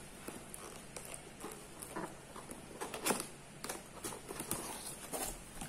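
Hands handling and opening a cardboard product box: scattered light taps, scrapes and rustles of cardboard, with one sharper knock about three seconds in.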